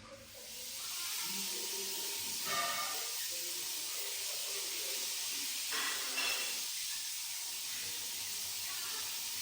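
A steady hiss of noise that fades in over the first second and holds evenly, with faint brief voices twice.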